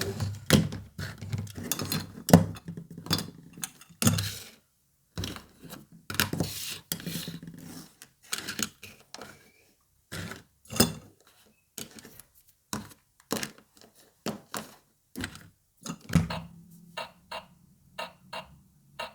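Small plastic toy pieces being handled and set down: irregular clicks, taps and light clatter, with some rustling in the first few seconds.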